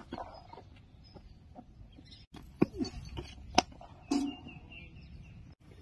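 Sharp knocks of a cricket bat striking the ball in the nets, a few times, the loudest about three and a half seconds in, followed by a brief voice.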